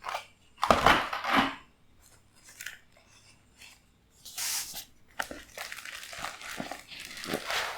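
Plastic packaging being handled and pulled from the box: irregular crinkling and rustling, with the loudest scrapes about a second in and a short hiss of sliding plastic near the middle.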